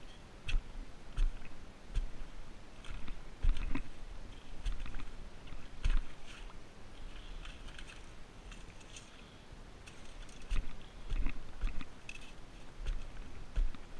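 Irregular crunches and scrapes of wet sand and stones being disturbed, each with a dull low thump, coming roughly every half second to a second.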